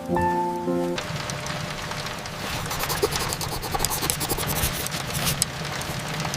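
Soft music that stops about a second in, giving way to a steady hiss with many fine crackling ticks that grow denser a couple of seconds later.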